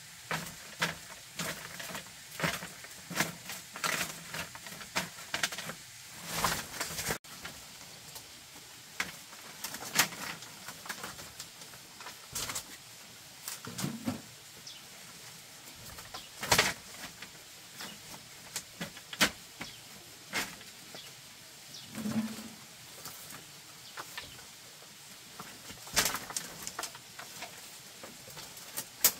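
Scattered sharp knocks and taps, dense and irregular for the first several seconds and sparser after that, with a short low bird call twice.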